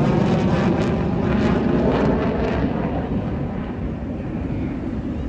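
An airplane flying past, a loud rushing engine noise that grows duller and a little quieter from about halfway through as it moves away.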